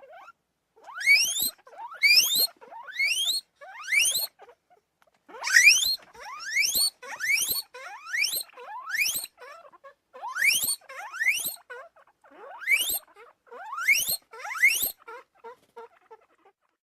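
Guinea pig squealing: a long series of short, sharply rising squeals, about two a second in runs with brief pauses, trailing off into fainter short notes near the end.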